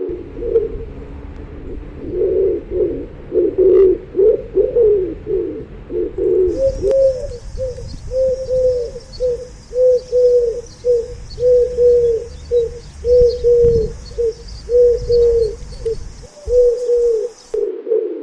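Pigeons cooing: low, overlapping coos at first, then from about six seconds in an even series of short arched coos, about two a second.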